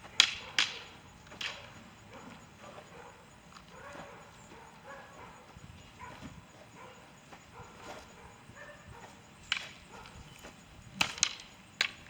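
Wooden or synthetic practice weapons clacking together in a sparring exchange: three quick strikes at the start, a single strike about nine and a half seconds in, and a fast flurry of three near the end.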